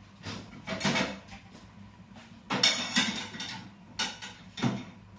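Kitchen clatter: dishes and a cupboard being handled, with clinks and knocks in a few separate bursts. They come about a second in, in a longer run around two and a half to three seconds, and twice more near the end.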